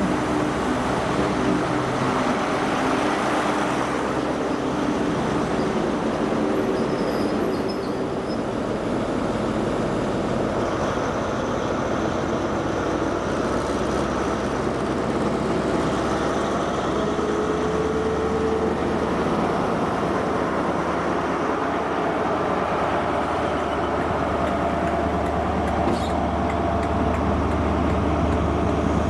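A ScotRail High Speed Train's class 43 diesel power car running beside the platform with a steady deep hum. In the second half the hum grows deeper and louder as the train pulls away and its Mk3 coaches roll past.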